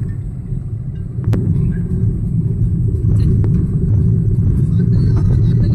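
A car driving over a rough dirt road, heard from inside the cabin: a steady low rumble of tyres and suspension, with a few sharp knocks from bumps and stones.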